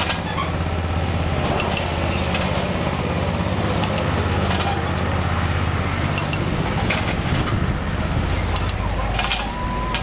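An engine running steadily with a low hum, with light metallic clinks now and then.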